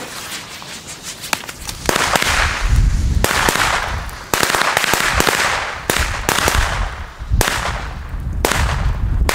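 A cheap string of small firecrackers going off, a long run of sharp bangs at uneven intervals, one or several a second. Wind rumbles on the microphone.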